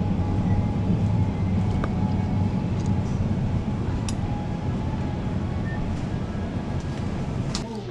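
Electric mobility scooter driving along, its motor and drive giving a steady low hum with a few faint clicks, gradually easing toward the end.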